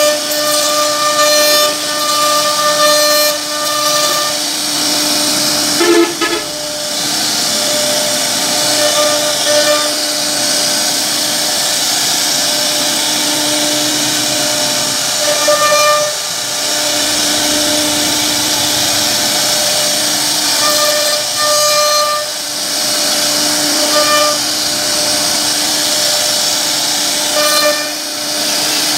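CNC router spindle carving a relief pattern into a wooden panel: a steady whine over a hiss of cutting. The whine grows stronger and weaker every few seconds as the bit works through the wood.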